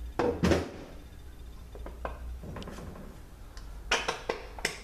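Metal clinks and knocks as the center support is worked out of an automatic transmission's aluminium case, with a couple of louder knocks near the start and a quick cluster of clicks near the end.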